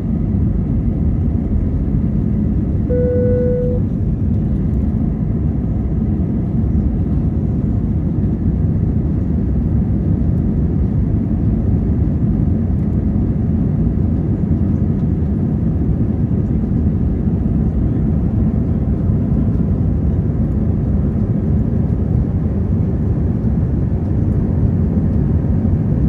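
Steady cabin noise of an Airbus A320 climbing after takeoff, heard from inside the cabin: a deep, even rush of its two IAE V2527-A5 turbofans and the airflow. A brief single-tone cabin chime sounds about three seconds in.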